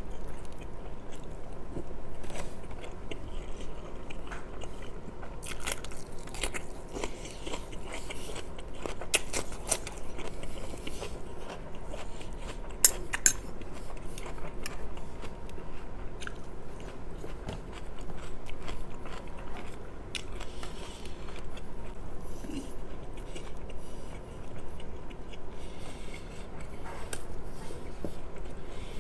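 Close-miked mouth sounds of a person biting and chewing chelo goosht, Persian rice with braised lamb, with many small irregular wet clicks and a couple of sharper clicks about halfway through.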